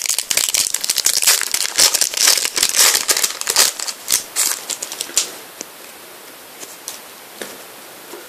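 Foil trading-card packet being torn open and crinkled, a dense crackling for about five seconds, then a few light clicks as the cards are handled.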